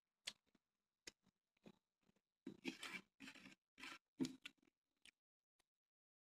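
Fingers scraping and gathering the last rice across a plate while eating by hand. A few soft clicks, then a run of scraping, rustling strokes through the middle.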